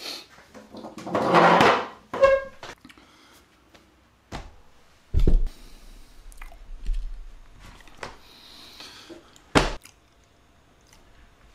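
Rustling and handling noise from a person moving up close to the recording device and adjusting it: a loud rustle early on, a short squeak, and two dull thumps about four seconds apart.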